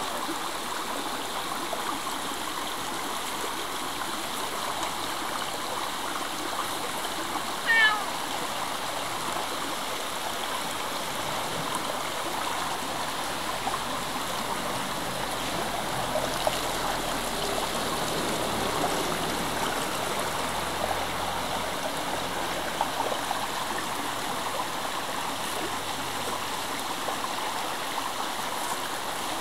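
Mountain stream rushing steadily over rocks, with a cat meowing once, briefly, about eight seconds in.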